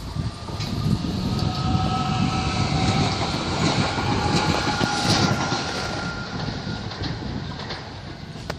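Sangritana regional train passing through the station: a rumble of wheels on the rails with a steady whine on top. It swells about a second in, then fades as the train moves away.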